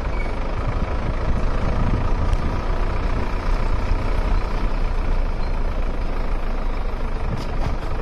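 Jeep engine running as it drives along a rough off-road dirt track, a steady loud rumble.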